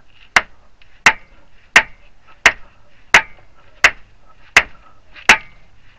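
Dead-blow hammer striking a CV axle in a steady series of eight sharp blows, about three every two seconds, driving the axle into the transmission to try to seat it.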